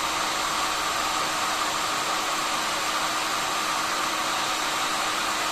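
Hot air gun blowing steadily, an even rush of air with a faint steady tone beneath, while it heats plastic to melt it into a broken chainsaw chain-brake lever.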